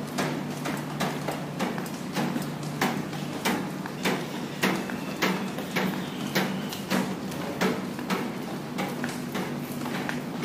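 Footsteps of a person walking at a steady pace on wet concrete, about three steps every two seconds, over a steady low hum.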